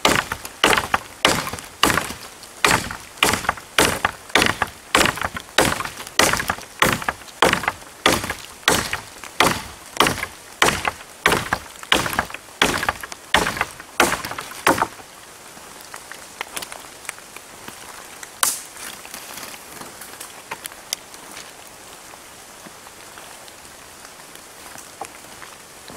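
Hand saw cutting through a wooden branch in steady, rhythmic strokes, nearly two a second, which stop about halfway through. After that comes a soft, even hiss of rain on the leaves, broken by one sharp snap.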